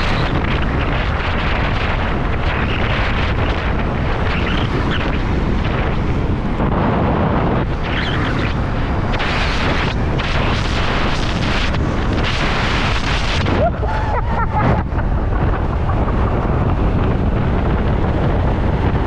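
Heavy wind buffeting on the microphone of a motorcycle ridden at speed: a loud, steady rush, with brief dips about fourteen seconds in.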